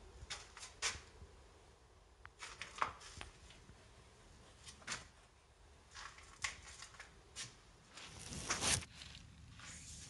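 Scattered light taps, clicks and rustles in a small room, with a longer, louder rustle about three-quarters of the way through.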